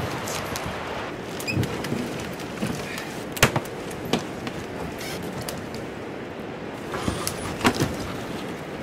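Loaded solo whitewater canoe being dragged through brush and deadfall: the hull scrapes and rustles over branches, with sharp snaps and knocks of twigs and wood. The loudest snap comes about three and a half seconds in, with more near the end.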